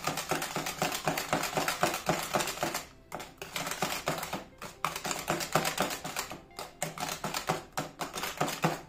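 Silicone balloon whisk beating egg and sugar in a plastic bowl: a fast, rhythmic clatter of wires striking the bowl, several clicks a second, with brief pauses about 3 s and 4.5 s in.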